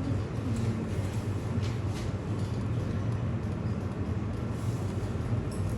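Steady low rumbling hum with no distinct events.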